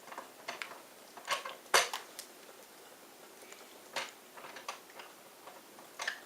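Scattered clicks and light knocks of a skin-cream jar and its packaging being handled, the loudest knock about two seconds in.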